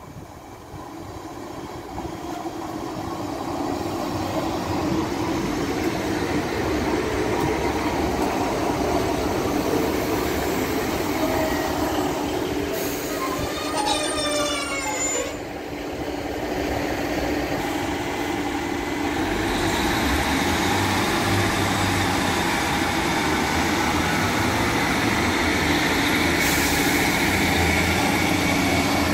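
GWR Class 150 Sprinter diesel multiple unit pulling into the platform, its diesel engines humming louder as it nears. About fourteen seconds in, a brake squeal falls in pitch as it slows. In the last ten seconds a lower, pulsing engine note comes in as it draws to a stand.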